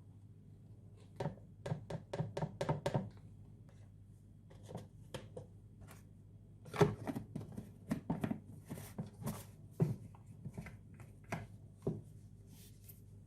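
Kitchen food preparation: a quick run of about eight knocks around a second in, then scattered knocks and taps, the loudest near the middle.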